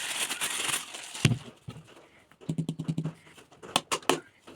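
Packaging being handled: rustling and crinkling for about the first second, a thump, then a few sharp clicks near the end.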